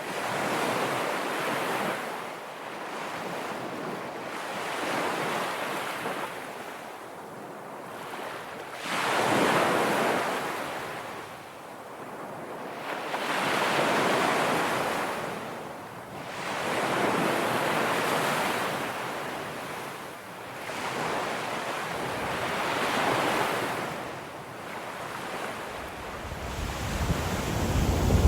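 Ocean waves breaking and washing on a shore, the surf swelling and fading every three to four seconds. A low rumble comes in near the end.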